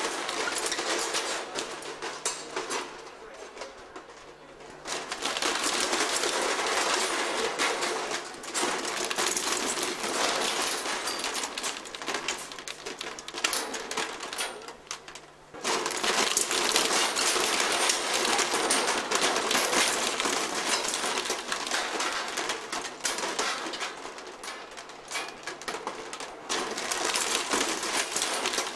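Dense, rapid mechanical clicking and clattering, many small clicks running together over a hiss. It grows quieter for a couple of seconds near the start and dips briefly about halfway through.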